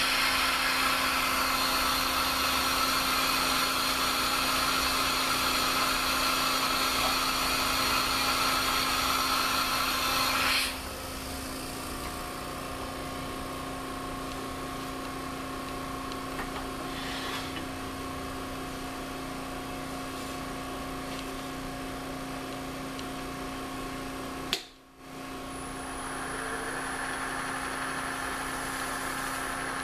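Powermatic 3520 wood lathe running, a steady machine whine with a constant hum beneath. About ten seconds in, the higher whine drops away and the sound settles quieter. It cuts out for a moment near the end, then comes back with a higher whine.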